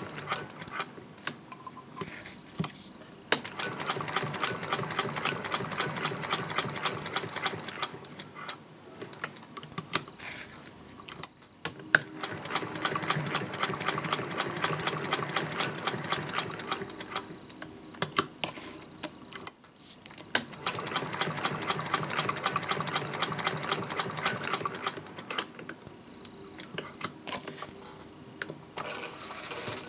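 Vintage Singer 201K hand-crank sewing machine stitching through leather: three spells of fast, even needle-and-gear clicking with a steady whir, with slower, quieter stretches between them.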